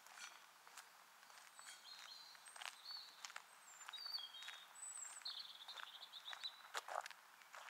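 Small birds chirping faintly with short, high calls, some gliding in pitch, over soft, irregular footsteps of a person walking.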